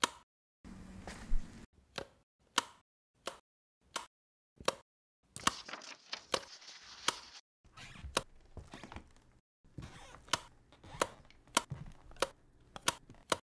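A series of sharp taps at a fairly steady pace, about three every two seconds, with stretches of scratchy rustling between them and a short pause near the middle.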